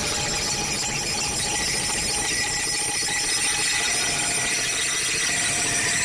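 Data centre ambience with uplink transmission: a steady rush of server fans and electronics with several steady high-pitched tones held over it. A higher tone comes in about a second and a half in.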